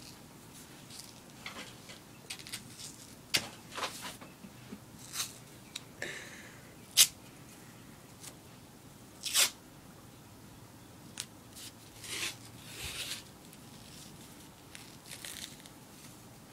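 White athletic tape being pulled off the roll and wrapped around an ankle: short ripping and rasping sounds at irregular intervals, the sharpest about seven and nine seconds in.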